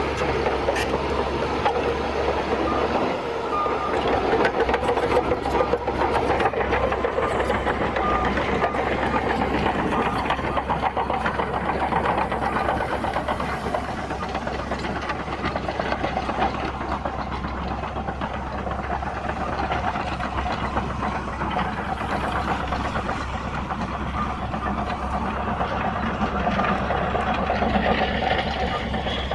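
Bulldozer's diesel engine running steadily under load as it pushes and levels earth.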